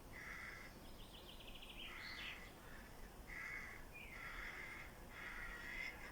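Birdsong: a bird gives five short calls, roughly one a second. A second bird adds a quick ticking trill about a second in.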